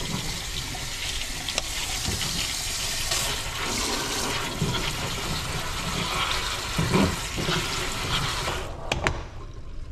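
Water running from a pull-down kitchen faucet onto shelled crown conch meat in a plastic colander, rinsing the meat in a stainless steel sink. The water shuts off near the end.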